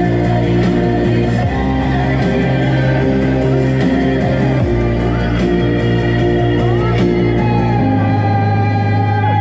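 Song with heavy sustained bass notes and chords playing loudly, a melodic vocal line entering near the end.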